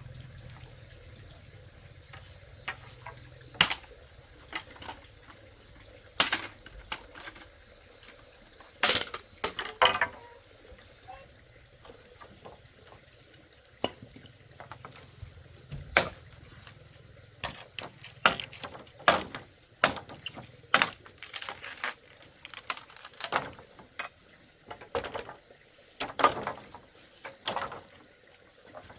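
Irregular knocks and clatter of wood or bamboo being struck and handled, the hits uneven in loudness and spacing, a few in quick clusters. A faint steady high insect drone runs underneath.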